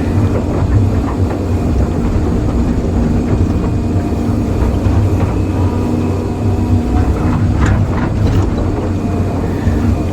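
Excavator's diesel engine running steadily with a constant low hum, with a few short knocks a little past the middle.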